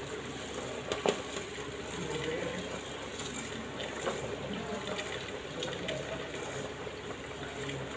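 Raw rice grains sliding off a steel plate and pattering into a pot of hot masala as they are pushed in by hand, a steady hiss of falling grain. One sharp metallic clink about a second in.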